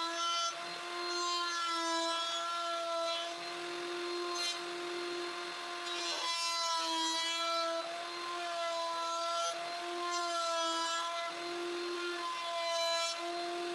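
Router with a round-over bit running at a steady high pitch, rounding over the edges of a small wooden handle. The rasping noise of the bit cutting wood swells and fades over several passes.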